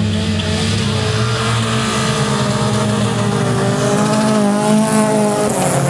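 A pack of old saloon cars racing on a dirt track, several engines revving at once as they come through a corner close by. The engine note climbs about four seconds in.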